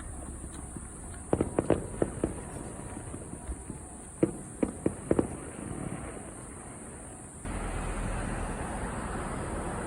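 Fireworks going off in two quick clusters of sharp bangs, about five in the first second or so and five more a few seconds later. Near the end, a steady rushing noise starts abruptly and carries on.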